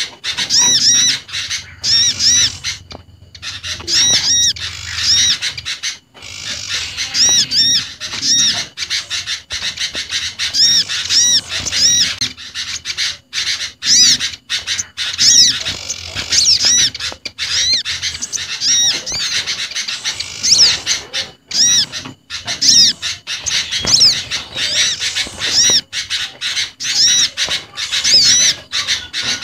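Bird-lure recording of small garden songbirds (sooty-headed bulbul, olive-backed sunbird, prinia and others) calling over one another: dense runs of short, high, arched notes, several a second, with brief breaks about three and six seconds in.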